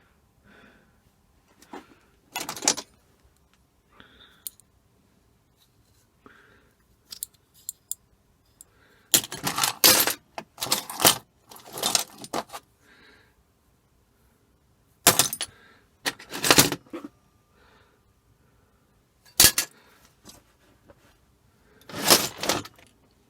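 Small metal clock parts clinking and rattling as they are handled and sorted, in several separate clatters with quiet gaps between.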